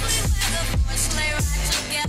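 Background music with a steady kick-drum beat and deep bass.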